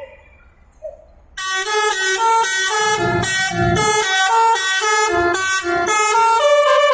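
Basuri 'telolet' multi-trumpet air horn playing a quick melodic tune of shifting notes, loud and close. It starts suddenly about a second and a half in.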